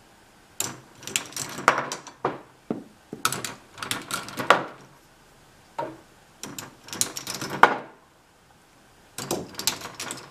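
Balls dropping through a plastic K'nex ball-machine path separator, clicking and clattering against the pieces as its mechanism tips over, in several separate bursts of rattling, each a second or so long.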